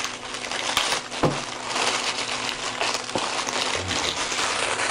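Clear plastic bag crinkling as a folded metal microphone boom arm is handled and worked out of it, with a couple of light knocks from the arm, one a little over a second in and another about three seconds in.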